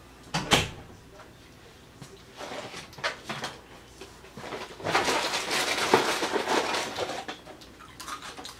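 A heavy thump, then a few light knocks and about two seconds of rustling and shuffling as a person comes in and sits down at a table, a cereal box in hand.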